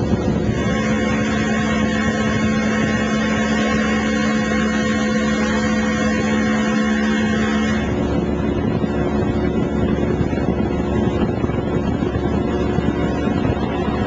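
Motorboat engine running steadily under way, with wind buffeting the microphone. About eight seconds in, the engine's note shifts to a different pitch.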